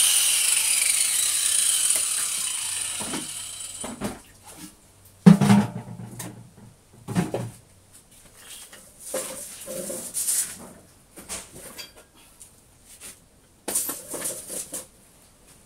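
A motor-driven machine with a loud hiss winds down, falling in pitch and fading out about four seconds in. Then scattered knocks and clatter of handling follow, the sharpest about five seconds in.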